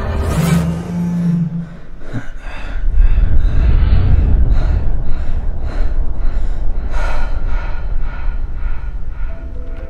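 Film sound design: a held low tone with a whoosh, then a deep rumble with a pulse repeating about twice a second, easing off near the end.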